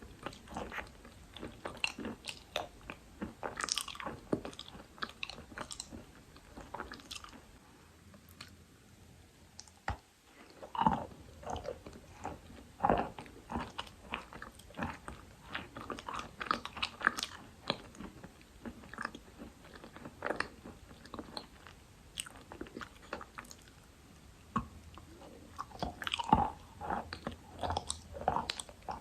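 A person biting and chewing Khrapovsky dry chalk: an irregular run of sharp, crunchy bites and chews, with a short lull about a third of the way through before the crunching resumes.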